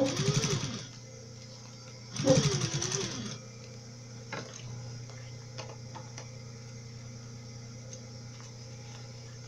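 Electric sewing machine stitching in two short bursts, the motor speeding up and slowing again each time, as the end of a bias binding is sewn down. A few light clicks follow as the work is handled, over a low steady hum.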